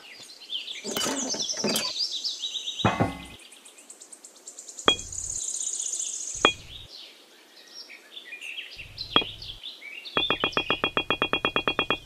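Edited cartoon-style sound effects: chirpy, sparkly sweeps, then three sharp single knocks a couple of seconds apart as miniature bricks are set down, and a fast run of clicks, about nine a second, near the end.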